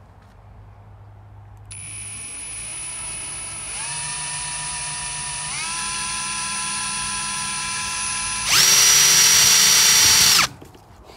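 Cordless drill spinning a drill-powered water pump. Its motor whine steps up in speed twice, then jumps to full speed and gets much louder about eight and a half seconds in, and cuts off suddenly two seconds later.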